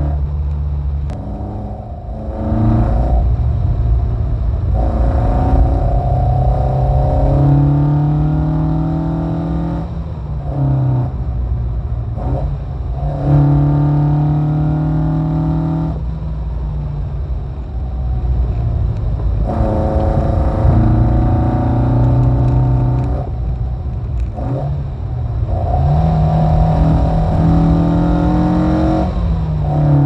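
Classic 1972 Alfa Romeo Giulia Super's twin-cam four-cylinder engine driven hard, heard from inside the cabin. Its note repeatedly climbs and holds, then cuts back and drops several times as the driver lifts and changes gear.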